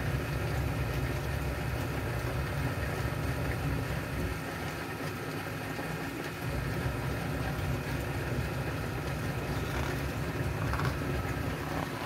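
Steady low background rumble of an unseen machine or engine, with no clear events.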